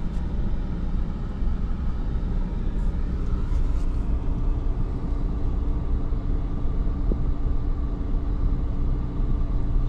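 Car engine and road noise heard from inside the cabin: a steady low rumble with an even engine hum as the vehicle drives on.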